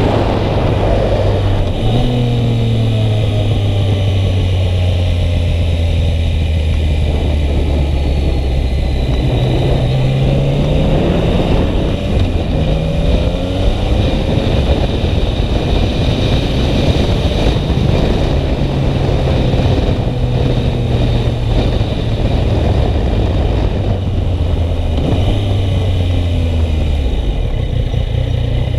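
Yamaha MT-09 motorcycle engine running under way. It holds steady revs for long stretches and rises in pitch several times as it accelerates, with a few shorter rises near the middle, all over a steady rushing noise.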